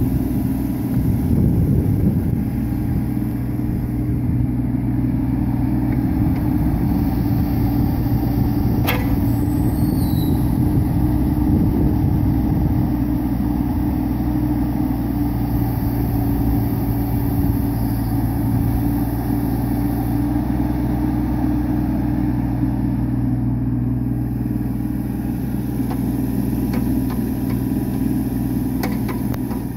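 Hitachi ZX16 mini excavator's diesel engine running steadily while the machine slews its boom from side to side. There is one sharp click about nine seconds in.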